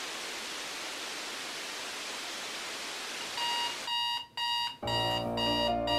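Steady hiss of video static for about three and a half seconds, then an electronic beeping tone that stutters in and out. About five seconds in, music with a low bass line starts.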